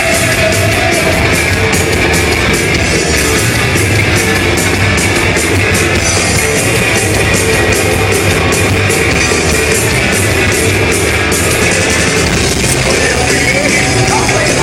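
Live heavy metal band playing loud: a distorted electric guitar solo held over bass and fast, even cymbal and drum strokes.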